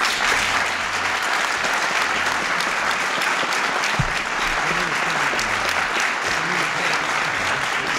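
Audience applause: many people clapping steadily, with a single low thump about four seconds in.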